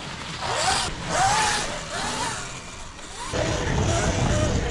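Sur-Ron Light Bee X electric dirt bike's motor whining, rising and falling in pitch as the throttle is rolled on and off. The sound gets louder and fuller after about three seconds.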